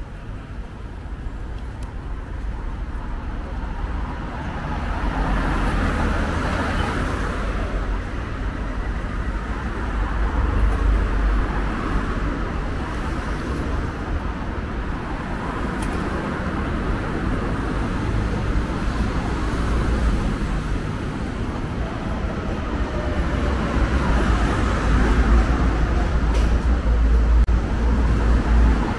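City street traffic noise along a busy boulevard: a steady rumble of passing cars, swelling and fading as vehicles go by.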